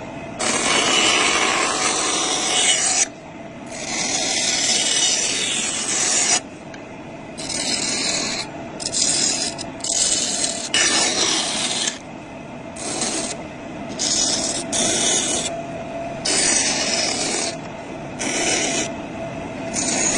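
Metal being cut with a pistol's body, in repeated bursts of harsh rasping hiss from about half a second to three seconds long, each starting and stopping abruptly, with quieter gaps between, over a steady hum.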